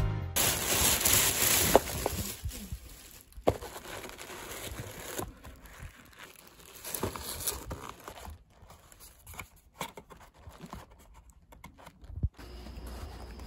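Rustling and crinkling of a cosmetics box and its wrapping being handled and opened, louder for the first couple of seconds, then quieter rustles broken by a few sharp small clicks.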